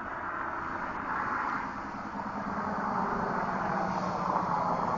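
A car driving along the road, its engine and tyre noise growing louder toward a peak about four seconds in as it comes past.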